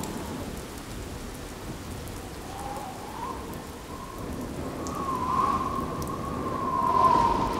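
Rain and thunder sound effect: a steady hiss of rain over a low rumble. From about two and a half seconds in, a thin wavering whistle-like tone rises in over it, loudest near the end.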